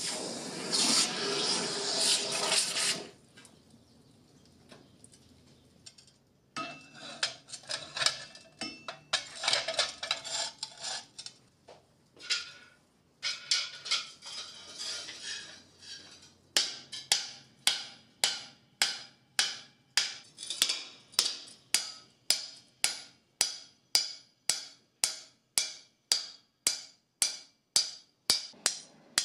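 A red-hot metal sheet plunged into a quench bucket sizzles for about three seconds. After a short pause come quick, uneven clusters of light hammer blows on the sheet lying on an anvil, then steady hammering at about two blows a second as the sheet is dimple-textured.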